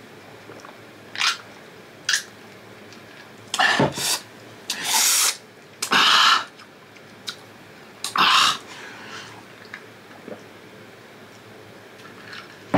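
A man eating and drinking noisily: a series of about seven short, sharp mouth noises such as slurps, gulps and exhales, with quiet between them.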